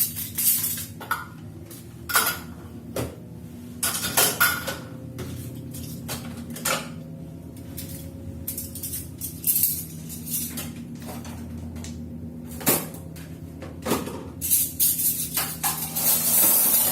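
Kitchen clatter: dishes, pots and utensils knocked and set down in irregular clinks and knocks, over a steady low hum, with a longer noisy stretch near the end.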